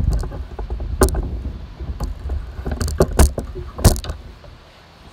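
Handling noise from a handheld phone: low wind rumble on the microphone and a handful of sharp, irregular clicks and knocks from the fishing rod and phone being moved about. The rumble dies down near the end.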